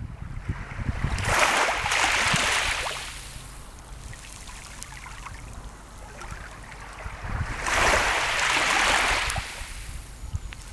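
Sea waves washing in twice, about six seconds apart, each swell of surf rising and fading over about two seconds over a steady low rumble.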